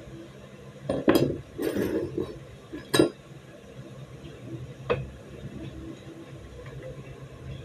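Steel parts of a stripped-down Beretta 92FS pistol clinking and clattering on a wooden table as they are handled and set down: a handful of sharp clinks in the first three seconds and one more about five seconds in, over a steady low hum.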